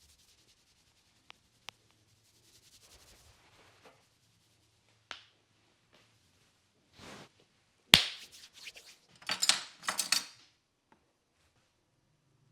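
Hands working a head during a massage: faint rubbing and a few soft clicks, then one sharp impact about eight seconds in, followed by a couple of seconds of scratchy rubbing through the hair.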